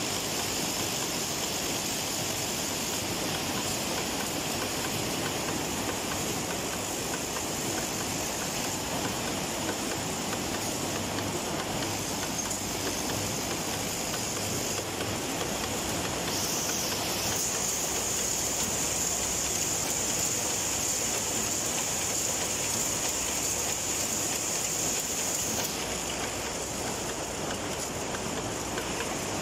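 Screw-production machinery running steadily: a vibratory bowl feeder rattling a mass of steel screws, with a steady high whine over the continuous clatter that shifts about halfway through and fades near the end.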